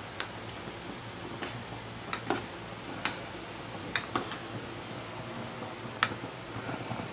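Long-handled metal spoon clinking and scraping against an aluminium canteen cup while stirring thick pasta sauce, in irregular sharp knocks a second or so apart, over a faint steady hum.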